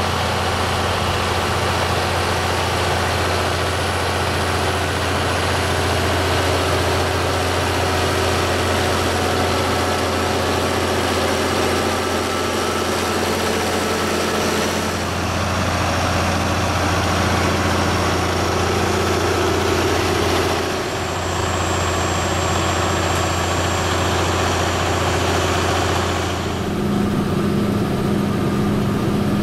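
Tractor engine running steadily under load while pulling a three-row top-lifting carrot harvester through the field, with the harvester's mechanism running.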